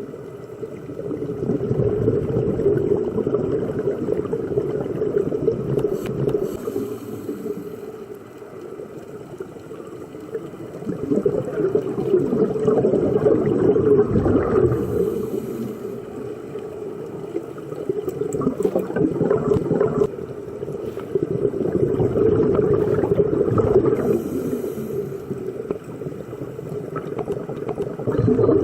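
Scuba diver breathing through a regulator, heard underwater: a low bubbling gurgle of exhaled air that swells and fades every few seconds.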